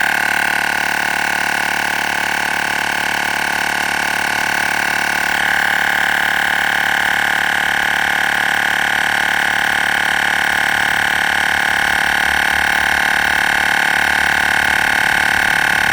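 Olgeo M7 portable 12-volt air compressor running steadily with a high, even whine, pumping a car tire that is nearly at its 40 psi target, about 39 psi. The whine grows slightly louder about five seconds in.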